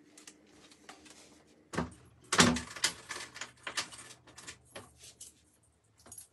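A wooden door being handled and opened: a few knocks and latch clicks, the loudest about two and a half seconds in, followed by lighter clicks and rattles.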